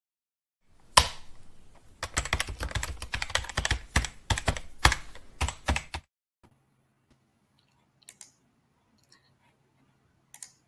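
Logo sound effect: a sharp hit, then about four seconds of rapid, keyboard-like clicking that cuts off suddenly. After it come a few faint clicks over a low steady hum.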